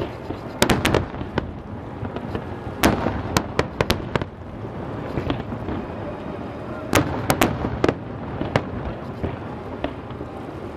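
Aerial fireworks shells bursting as sharp bangs in quick clusters, about half a second in, around three seconds in and around seven seconds in, with a steady rumbling noise between them.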